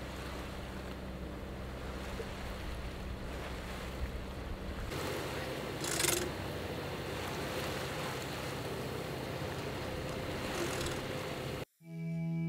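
Wind and water rushing past a sailboat under way, over a steady low hum from the boat's engine. Near the end it cuts off abruptly and guitar music begins.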